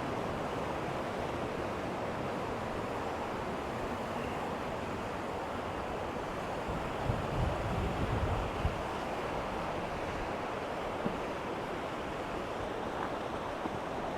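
Waterfall rushing steadily, a constant noise of fast-falling water. A few low buffets of wind on the microphone come about seven to nine seconds in.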